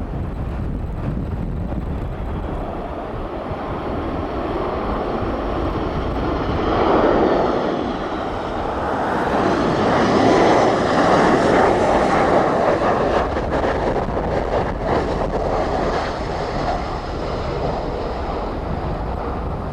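Jet engines of a Boeing 737 MAX 8 (CFM LEAP-1B turbofans) going past on landing, swelling in the middle with a faint high whine that falls in pitch, over heavy wind buffeting the microphone.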